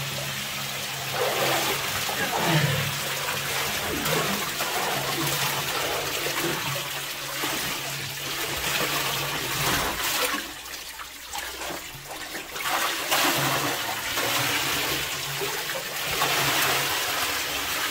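Water sloshing and swirling as a person in chest waders climbs in and wades into waist-deep water.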